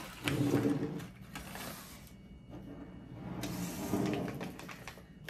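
Rustling, scraping and small clicks as paper packets of hot cocoa mix are emptied into a mug and laid on a wooden table.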